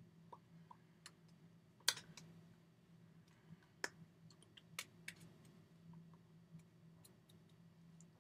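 Sparse, irregular sharp clicks and taps from a signer's hands striking each other and his body as he signs, over a faint steady low hum.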